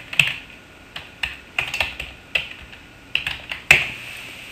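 Typing on a computer keyboard: irregular keystrokes, with one louder, sharper keystroke about three and a half seconds in.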